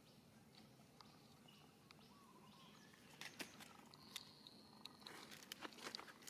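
Near silence broken by faint crackles and rustles of dry leaves, picking up from about three seconds in, with a brief faint bird chirp.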